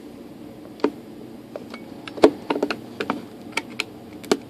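Light clicks and taps of hands handling a model glider's fibreglass fuselage and plastic canopy: a dozen or so irregular knocks, the sharpest about two seconds in.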